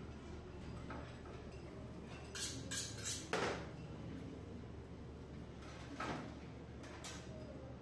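Metal clinks and rattles from a meat band saw's steel blade being handled and fitted onto its wheels by hand, with the saw switched off: a cluster of clinks about two and a half to three and a half seconds in, then single clicks about six and seven seconds in.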